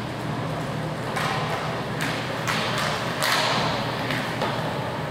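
Inline hockey play: a handful of sharp knocks and thuds from sticks, ball or puck, and the boards, the loudest about three seconds in, over a steady low hum.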